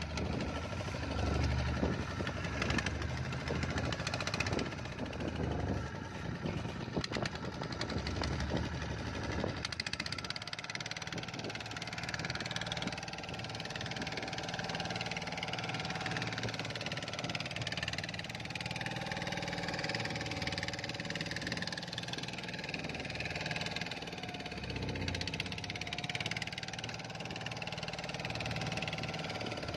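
Small fishing boat's engine running steadily under way, with scattered knocks during the first ten seconds or so.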